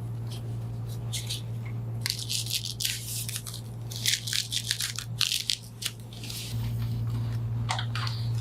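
Rustling and handling of a wide spinal-decompression strap being fitted, in short irregular bursts, over a steady low hum.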